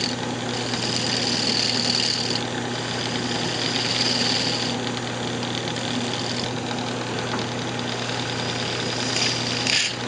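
Lathe running with a steady motor hum while a small fingernail detail gouge cuts a spinning block of layered paint, the cutting hiss coming and going in strokes of about two seconds. A short, sharper scrape comes near the end.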